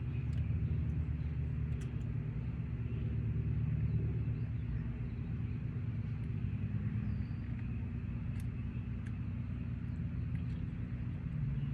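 Steady low rumble and hum, with a few faint clicks scattered through it.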